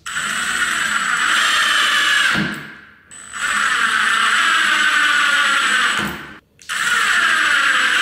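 Cordless impact driver driving screws into a door hinge, three runs of about two to three seconds each with short pauses between, with a steady high whine in each run.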